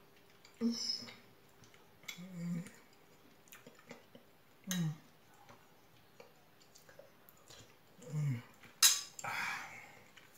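Fork clinking and scraping against a bowl while someone eats, with a few short hums between mouthfuls. The loudest scrape comes about nine seconds in.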